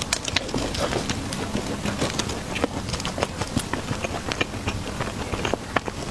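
Close-up eating sounds: irregular small clicks and smacks of chewing and handling soft pastries, over a steady low background noise.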